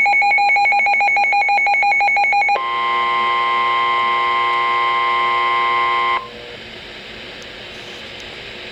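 Emergency Alert System alert tones announcing a severe thunderstorm warning: rapid pulsing beeps at several pitches for about two and a half seconds, then a steady multi-tone attention signal for about three and a half seconds that cuts off sharply, leaving a faint broadcast hiss.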